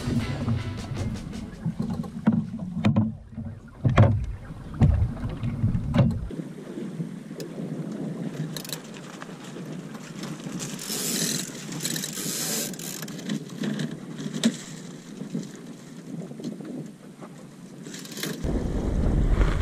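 Snipe sailing dinghy under way: water washing and lapping along the hull, with scattered knocks and clicks from the boat's fittings and lines in the first few seconds. Wind buffets the microphone near the end.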